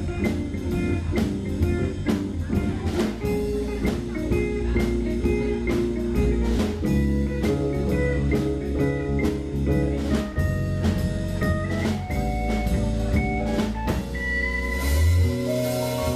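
Live jazz-fusion band playing: electric bass, electric guitar, keyboard and drum kit with cymbals. Near the end the drumming stops and long notes are held.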